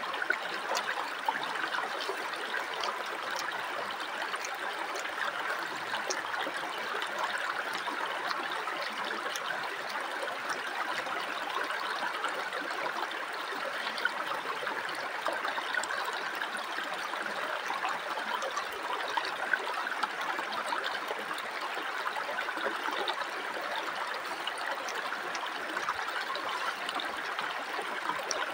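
Shallow rocky river flowing steadily, an even babble of running water over stones.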